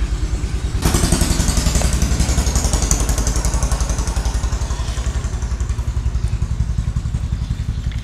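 A motorcycle engine idling nearby, making a steady, rapid low chugging. From about a second in, a hiss rises over it for a few seconds and then fades.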